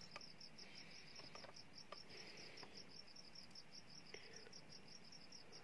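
Faint cricket chirping: a steady, even run of high pulses, about eight a second, over near-silent room tone, with a few faint light clicks.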